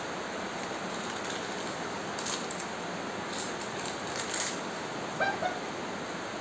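Steady hiss with faint crisp crackles and light clicks as fuchka are picked from ceramic bowls and eaten, a few of them between about two and four and a half seconds in.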